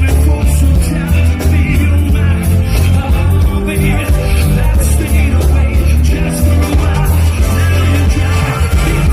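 Live reggae band music played through a concert sound system, with a heavy, steady bass line and a singer's voice over it.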